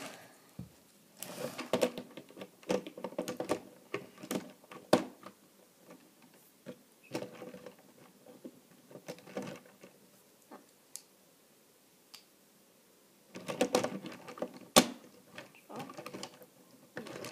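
Hard plastic parts of a Transformers Megatron action figure clicking, snapping and rattling as they are folded and pressed into truck mode, with knocks of the toy against a wooden table. The clicks come in irregular clusters, with a pause of a few seconds about two-thirds of the way through.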